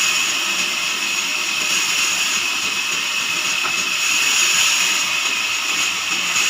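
Band sawmill running steadily: a loud, even machine noise with no pauses or strokes.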